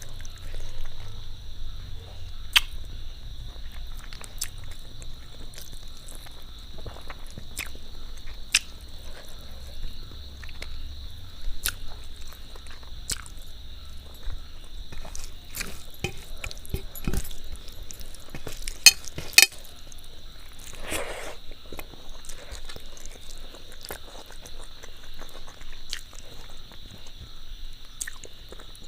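Close-miked chewing and biting of a rice-and-curry meal, with wet mouth sounds and scattered sharp clicks and smacks; two louder smacks come close together about two-thirds of the way through. A steady high-pitched drone sits under it all.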